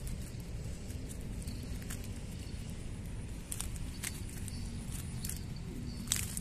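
Caught fish flapping in a mesh keepnet lifted out of the water, giving irregular wet slaps and taps over a steady low rumble. The loudest slap comes near the end.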